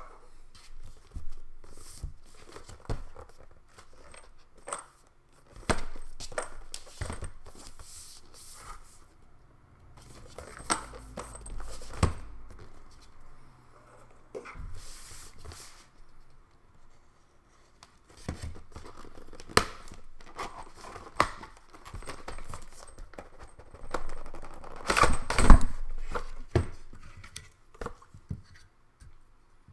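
Fan packaging being opened and handled by hand, the cardboard box and plastic wrapping giving irregular clicks, knocks and rustles. The loudest cluster comes about twenty-five seconds in.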